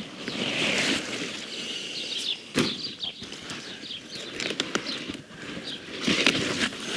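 Rhubarb stalks being gripped and pulled from the crown by hand, the big leaves rustling. There is one sharp snap about two and a half seconds in.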